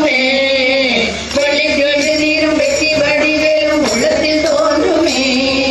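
A group of women singing a Tamil devotional bhajan to Murugan, holding long notes, with a short break for breath about a second in.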